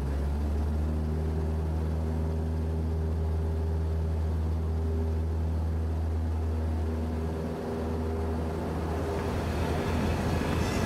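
Cessna 172S's 180 hp Lycoming four-cylinder engine and propeller running steadily at high power, heard from inside the cockpit during the takeoff roll of a touch-and-go. It dips briefly about three-quarters of the way through, and music comes in at the very end.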